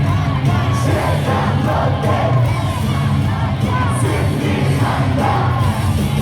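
Stadium crowd of baseball fans singing and chanting a cheer song together over loud music from the ballpark speakers.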